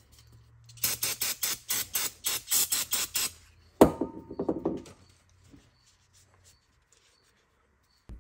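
Rubber squeaking in a quick run of about a dozen strokes, some five a second, as a brake caliper slide pin is worked into its rubber dust boot. Then one sharp knock, followed by a few lighter clatters.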